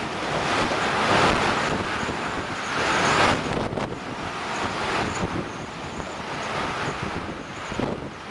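Strong wind gusting against the microphone: a rushing noise that swells and eases, loudest about one and three seconds in.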